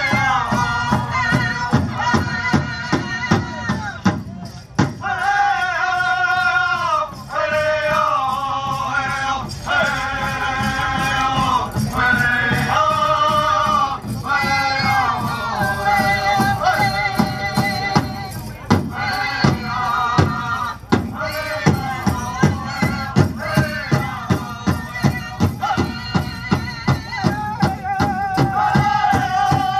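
Powwow drum group singing in phrases that step down in pitch over a steady, even drumbeat, with the jingle of dancers' bells.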